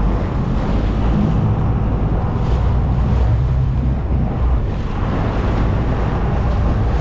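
Wind buffeting the microphone over the rush of the sea, with a steady low rumble from the sportfishing boat.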